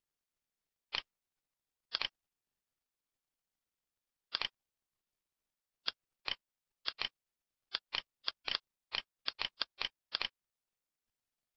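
Computer mouse clicks on dead silence: a few single and double clicks, then a quicker run of clicks at about three a second in the second half.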